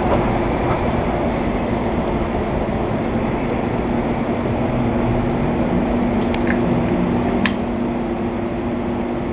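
Busy city street traffic: a steady din of cars and taxis running and passing, over a constant low hum. A single sharp click sounds about three-quarters of the way through.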